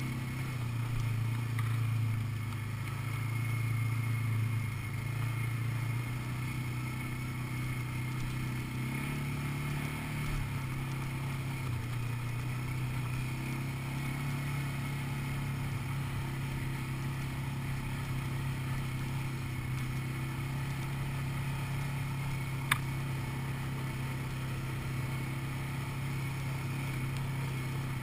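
ATV engine running steadily under way on a dirt trail, its drone shifting a little in pitch with the throttle in the first ten seconds. One sharp click or knock about three quarters of the way through.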